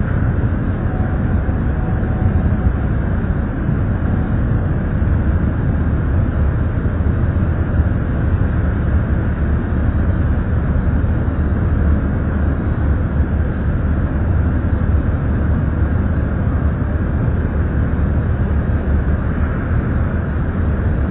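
A steady low rumble with no clear pitch, even in loudness throughout.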